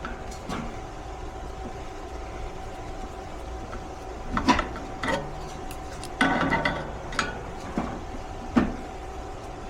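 Metal clanks, knocks and a short rattling scrape from tools and sheet-metal parts as a furnace blower assembly is taken apart to remove the blower motor, with a faint steady hum underneath.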